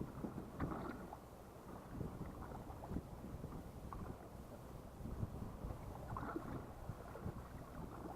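Water slapping and lapping irregularly against a fishing boat's hull, over a low steady hum.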